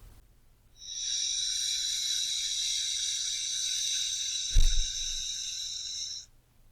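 A person's deep breath: one long, steady, airy hiss lasting about five seconds that starts and stops abruptly. A brief low thump comes about four and a half seconds in.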